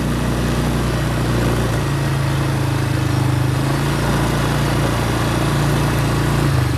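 Quad bike (ATV) engine running under way. Its pitch steps up about two seconds in as it speeds up, and drops again near the end as it slows.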